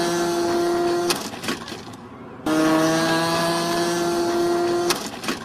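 Radio-controlled model airplane motor running at a steady pitch. It cuts off about a second in, starts again about a second and a half later with its pitch creeping slightly upward, and stops shortly before the end.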